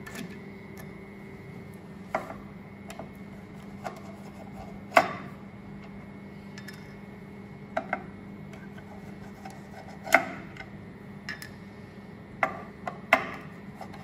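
Scattered metallic clicks and knocks, about a dozen and irregular, as a large screwdriver turns out and lifts grease caps from a stainless-steel machine plate. A steady faint hum runs underneath.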